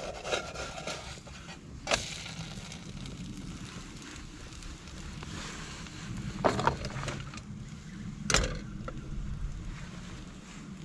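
Spirit stove burning under a crêpe pan in gusty wind, with low wind rumble on the microphone; the flame sounds as if the spirit is running low. A few sharp knocks cut through, the loudest about six and a half and eight seconds in.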